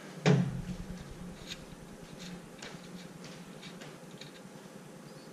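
Light, irregular metal clicks and taps as the 10 mm terminal nut and wiring are worked off the back of a Ford truck alternator, with one sharper knock about a third of a second in.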